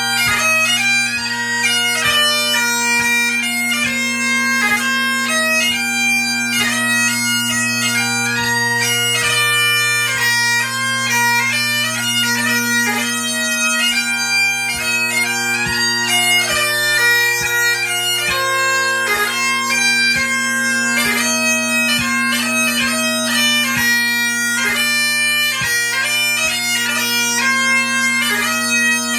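Great Highland bagpipe playing a 2/4 pipe march: steady drones under a chanter melody with quick grace notes.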